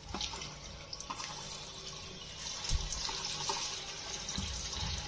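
Banana kofta balls deep-frying in hot oil in an iron kadhai: a frying hiss with fine crackle that grows louder as more balls go into the oil.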